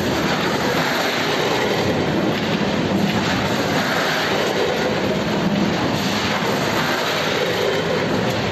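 Multihead weigher of a snack packaging machine running, a steady, dense rattling clatter from its vibrating feed pans and stainless-steel hoppers as puffed snack pieces move through.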